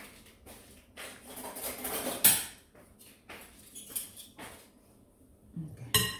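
Plastic measuring scoops scraping and tapping against silicone cupcake liners, a muffin tin and the mixing bowl as cupcake batter is scooped and poured, with one louder knock about two seconds in. Near the end a metal spoon clinks against the mixing bowl with a short ring.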